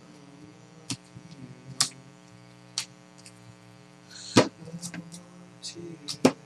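Baseball trading cards being handled and set down: scattered light clicks and taps, the loudest about four seconds in with a short slide of card stock just before it, over a steady electrical hum.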